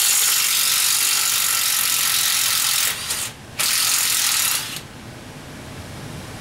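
Pneumatic air ratchet running in two bursts, about three seconds and then, after a short break, about a second more, with a loud rushing hiss of exhaust air. It is backing out the water pump bolts on a GM 4.3 V6.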